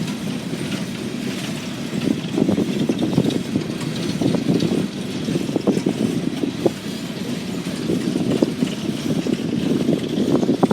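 CSX freight train's cars rolling past: a steady rumble of wheels on rail with irregular clanks and knocks.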